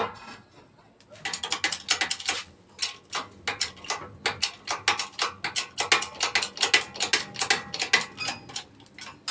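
Mechanical clicking and clacking of metal parts, several sharp clicks a second at an uneven pace. It starts about a second in and stops near the end.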